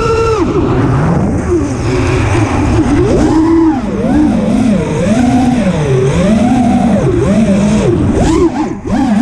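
Racing quadcopter's brushless motors and propellers whining in flight. The pitch rises and falls about once a second as the throttle changes, over a low rush of air, and the sound drops briefly near the end.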